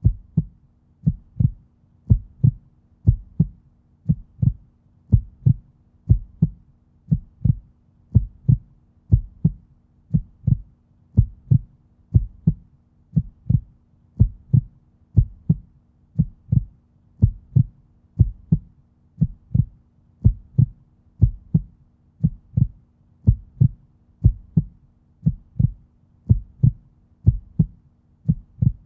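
Human heartbeat: a steady lub-dub, two low thumps close together, about once a second.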